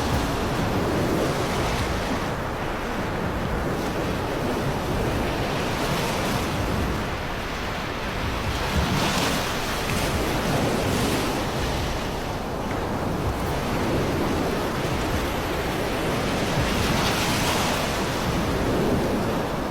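Floodwater rushing in a steady, loud wash, with wind buffeting the microphone. Every few seconds it swells in brief surges.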